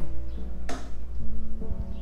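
Background music with steady held notes over a low hum, and a brief hiss a little under a second in.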